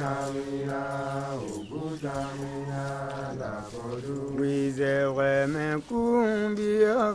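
A voice chanting in long held notes, each a second or more, that slide in pitch at their ends, with the pitch wavering on the notes near the end.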